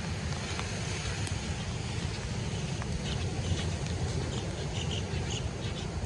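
Steady outdoor wind-and-rain ambience: wind rumbling on the microphone over a hiss of rain, with scattered light ticks. A few faint high chirps come through in the middle seconds.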